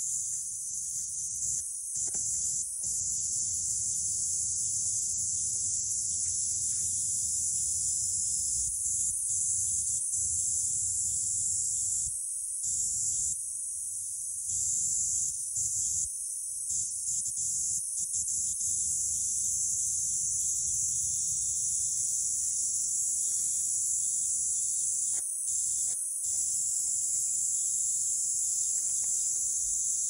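Cicadas singing in a dense, steady high-pitched buzz that briefly cuts out several times.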